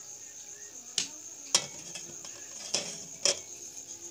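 Four sharp knocks or clicks, in two pairs about half a second apart, over steady high cricket chirring.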